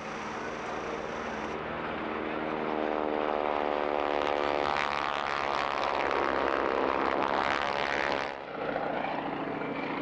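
Single-engine propeller warbird making a low pass: the engine and propeller drone grows louder and its pitch falls as the plane goes by. It cuts off abruptly about eight seconds in, leaving a quieter engine sound.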